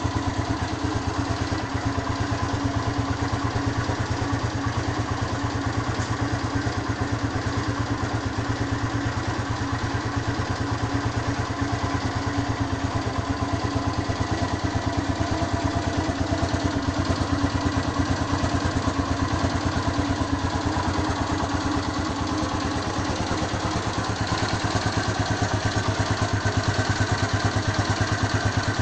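Honda Phantom motorcycle engine idling steadily as it warms up, with a fast, even beat of firing pulses.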